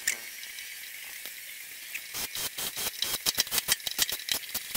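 Rapid, irregular clicking and light rattling of small metal and plastic parts being handled with a hand tool while wiring a fuel pump and sender assembly, starting about two seconds in.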